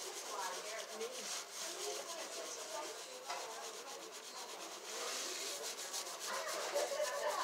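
Fingers scrubbing a shampoo-lathered scalp: a rapid, continuous rubbing of many quick short strokes.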